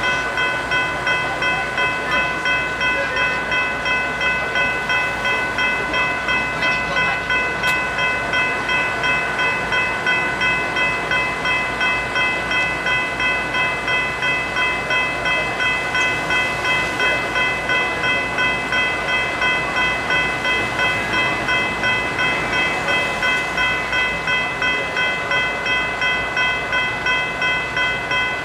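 General Signals Type 3 electronic level-crossing bells ringing continuously: a loud, quick, even series of high metallic dings with no break. They are the warning that the crossing is activated for an approaching train, with the lights flashing and the booms down.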